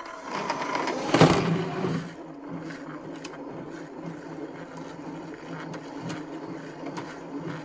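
Bambu Lab AMS feeder motor running, drawing filament in while loading a spool: a louder whirr about a second in, then a steady motor hum with a few light clicks.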